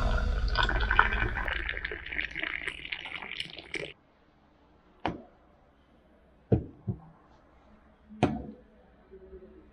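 Mint tea poured from a metal teapot into a glass, a splashing trickle that stops abruptly after about four seconds. Then a few short knocks as glasses are set down on a table.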